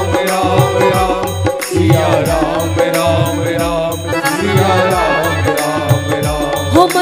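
Devotional bhajan music with a steady, driving drum beat under a wavering, ornamented melody.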